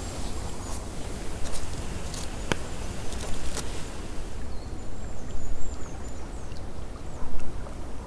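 River water running steadily with a low rumble, with a few light clicks in the first half and a faint high bird call after about four seconds.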